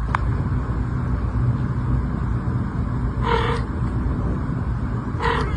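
A cat meowing twice, two short calls about two seconds apart, over a steady low rumble.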